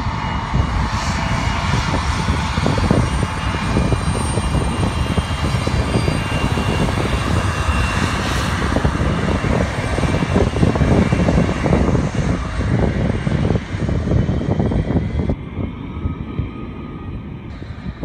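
Jet airliner engines running with a steady roar and a faint whine as the airliners move on the runway and taxiway, with gusty wind buffeting the microphone. The sound eases off somewhat near the end.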